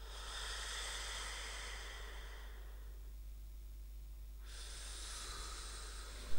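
Two long breathy hisses, each about two seconds, the second starting about four and a half seconds in.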